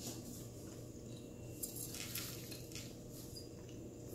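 Faint eating sounds: soft, wet squishes of chewing and a few small handling rustles about two seconds in, over a low steady hum.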